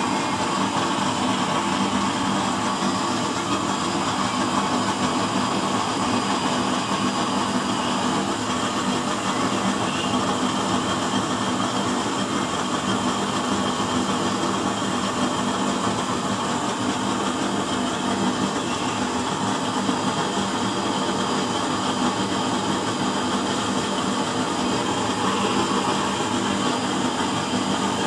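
Used-oil burner stove running: a loud, steady hum and rush that stays even throughout.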